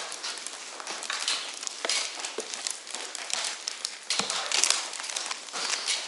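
Debris crunching and crackling underfoot as someone clambers through a rotted, rubble-strewn room: an irregular run of clicks and rustles, with a louder patch of crackling about four seconds in.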